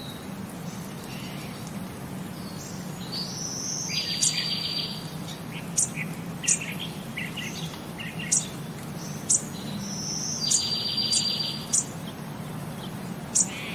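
High, bird-like chirps, tweets and short sharp ticks over a steady low hum. A trilled phrase of the pattern comes back the same about six and a half seconds later.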